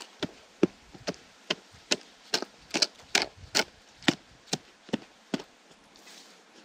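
A short-handled digging tool chopping into hard earth: a steady run of about a dozen sharp blows, roughly two a second, that stops about five seconds in.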